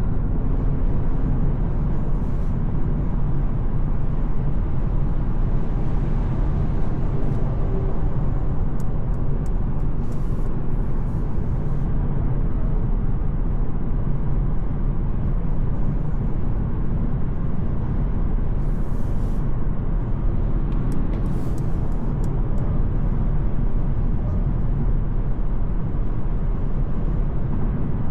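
Steady driving noise of a 2025 Mercedes-Benz C 200 with a 1.5-litre petrol engine, cruising on the road: an even low rumble of tyres and engine.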